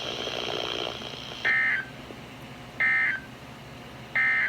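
Emergency Alert System end-of-message (EOM) signal: three short, identical bursts of warbling two-tone digital data, each about a third of a second long and about 1.3 seconds apart. They mark the end of the alert. Fading radio hiss comes before the first burst.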